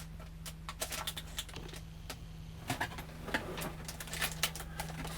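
Scattered light clicks and taps from boxed collectible figures and their cardboard and plastic packaging being handled, over a steady low hum.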